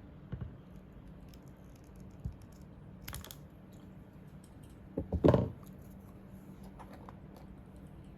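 Scattered small plastic clicks and knocks from handling a computer mouse and its parts, a few separate taps with the loudest cluster about five seconds in, over a faint steady low hum.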